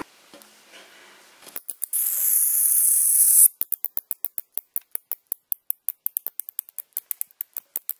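A trapped bat squeaking: a few sharp high clicks, then a loud shrill chatter for about a second and a half, then a steady run of sharp high-pitched squeaks, about seven a second.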